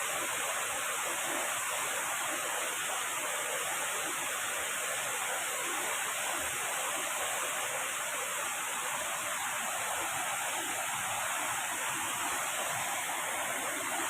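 Waterfall: falling water making a steady, unbroken rush of noise.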